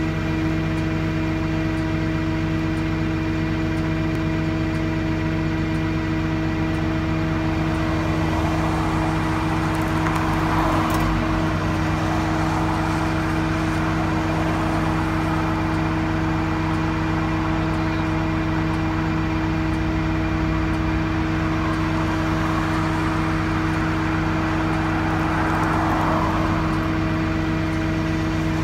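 A vehicle engine idling with a steady, even hum. Two passing cars swell up and fade away, one about ten seconds in and one near the end.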